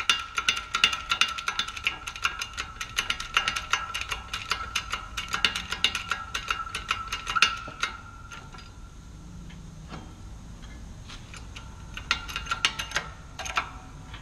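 Rapid metallic ratcheting clicks, several a second with a ringing squeak, from a bottle-jack shop press being worked to push a wheel hub into a new wheel bearing. The clicking goes on for about seven seconds, eases off, then returns briefly near the end.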